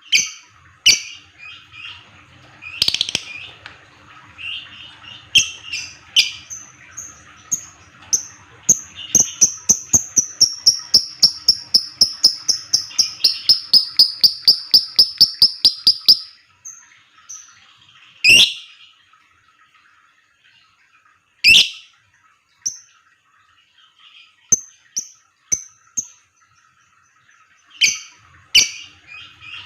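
Lovebird giving sharp, high chirps that run into a fast, even series of ticking notes, about four a second, in the 'ngetik' style, then breaking off into scattered single calls.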